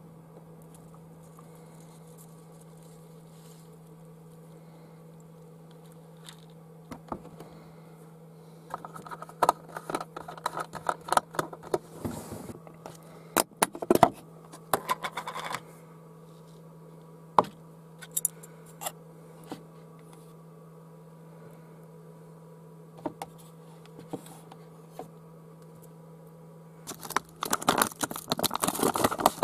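Breakfast being handled by hand: a plastic yoghurt tub, bowl and spoon giving scattered clicks, taps and scrapes, then near the end a chia seed pouch crinkling loudly as it is handled. A steady low hum runs underneath.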